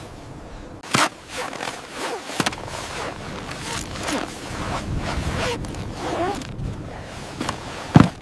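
Scraping and rustling of gear being handled, a run of short scrapes, with a sharp knock about a second in and a louder thump near the end.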